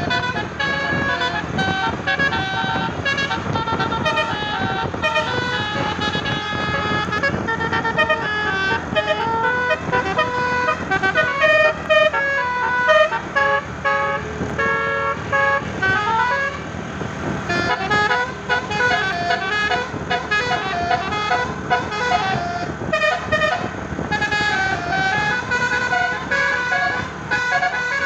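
Tour bus's telolet basuri musical air horn playing a fast, continuous melody of short notes, several tones at once, over engine and road noise.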